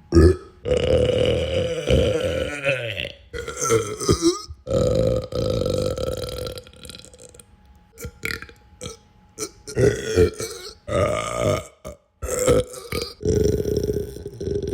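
A person belching over and over: a run of about eight to ten belches. Several are long and drawn out, up to about two seconds each, and the rest are shorter, with brief gaps between them.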